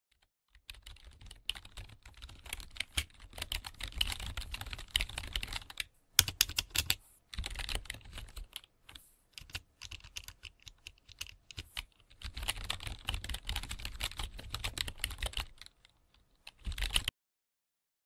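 Typing sound effect: rapid key clacks over a dull low thud, in runs broken by short pauses. It stops suddenly near the end.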